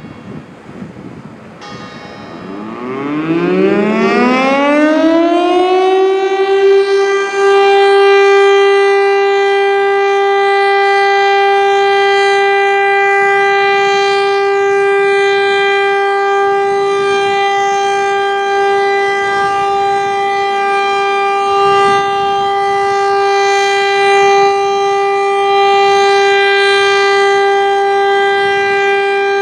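Federal Signal STL-10 outdoor warning siren starting up for its weekly alert-tone test: a whine rising in pitch over about four seconds, then holding one steady, loud tone.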